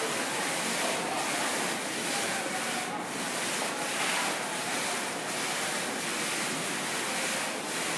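Digital water-curtain display: sheets of falling water drops rain steadily into the basin below, making a constant splashing hiss.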